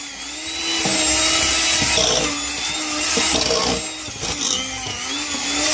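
Electric hand mixer running, its beaters churning crumbly bath bomb mixture (baking soda, citric acid, salts and oils) in a stainless steel bowl. A steady motor whine sits over the rushing, gritty noise of the beaters in the dry mix.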